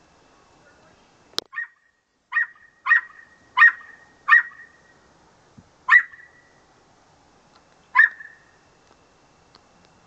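African grey parrot imitating a dog's bark: seven short, sharp barks in an uneven run, the last two more spaced out, with a single sharp click just before the first.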